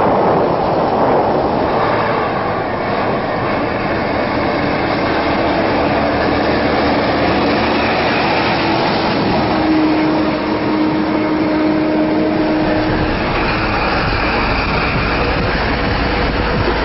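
Sinotruk HOWO mining dump trucks driving on a dirt haul road: steady diesel engine and road noise, with a deeper rumble coming in about two-thirds of the way through.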